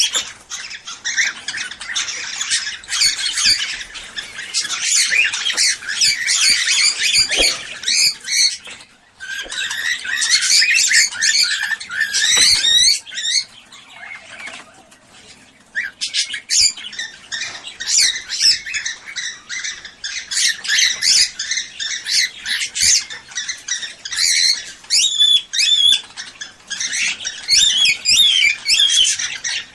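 Cockatiels chattering and squawking in a dense, continuous stream of calls, with a brief lull about halfway through. This is flock chatter of the kind played to encourage cockatiels to breed.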